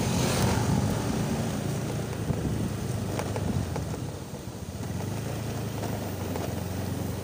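Motor scooter riding slowly, its small engine running with wind noise on the microphone; a steadier low engine hum settles in about five seconds in.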